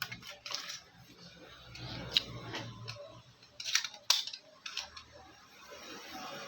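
Small sharp clicks and short scrapes of tablet parts and hand tools being handled during an iPad repair, with a few louder snaps in the middle.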